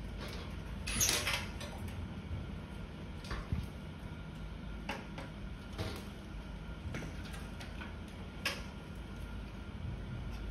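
Scattered clinks and knocks of small metal parts being handled and set down inside a disassembled gas stove's sheet-metal housing, the loudest cluster about a second in, over a steady low background hum.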